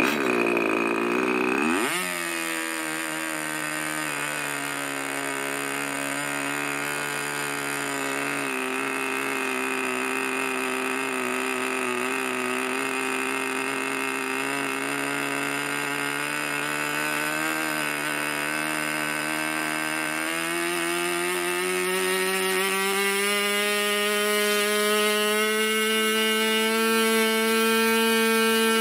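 Irvine 25 Mk II glow-plug model aero engine with a 9x6 propeller, electric-started from stone cold: it fires after about two seconds of cranking, then runs steadily. Over the last third its pitch climbs steadily as the needle valve is leaned and it speeds up.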